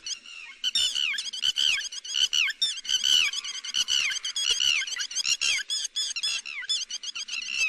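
Lapwing calls used as a bird-trapping lure: rapid, repeated shrill notes that fall in pitch, several overlapping in a continuous chatter.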